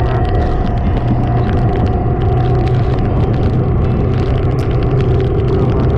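Kawasaki Ninja 400 parallel-twin engine running at a steady cruise under wind noise, with many small ticks scattered through it.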